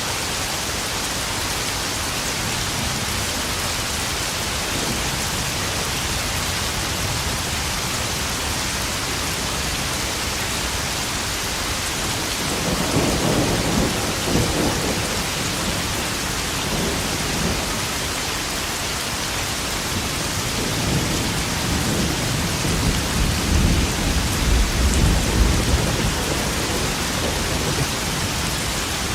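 Steady heavy rain drumming on puddles, with thunder rumbling twice: once about twelve seconds in, and again, longer and louder, from about twenty seconds in.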